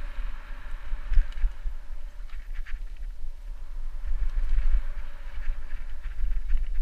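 Mountain bike riding fast down a dirt singletrack: tyres crunching over loose dirt and gravel, with the bike rattling sharply over bumps now and then, all under a heavy rumble of wind buffeting the microphone.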